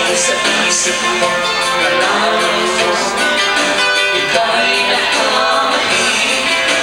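Live pop-folk-country music: a strummed acoustic guitar with singing, played steadily.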